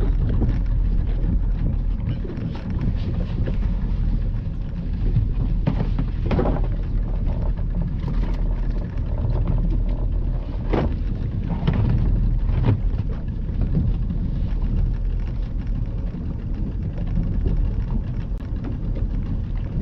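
Steady low rumble of a small fishing boat at sea, with several sharp knocks or splashes in the middle.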